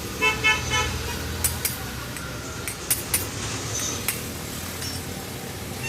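Metal clinks and taps as a new 6202 ball bearing is knocked into the cover of an Atomberg BLDC ceiling fan's motor: a short ringing clink near the start, then a few sharp separate taps.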